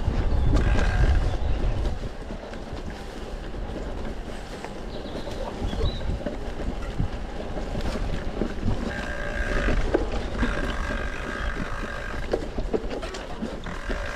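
A mountain bike rattling and knocking over rough trail, with wind rushing loudly across the rider's camera microphone. A high squeal comes in briefly near the start and again for about three seconds past the middle.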